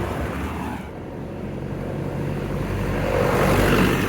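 A motor vehicle passing close by, its engine and tyre noise growing louder to a peak near the end, then easing.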